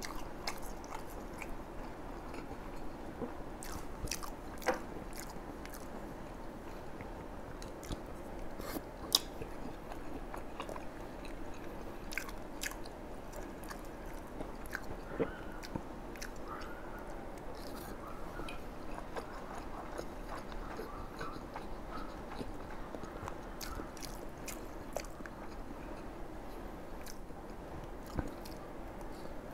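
A person chewing and biting into bún đậu mắm tôm: rice vermicelli and fried tofu dipped in shrimp paste. Scattered sharp clicks run through the chewing, a few louder than the rest.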